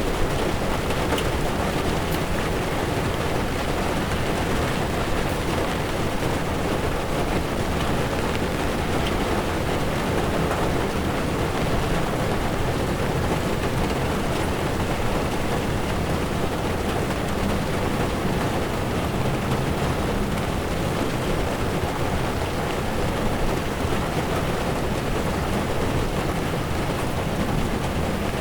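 Heavy rain falling on a car's windshield and tyres running on a wet road, heard from inside the moving car: a steady, even rush of noise.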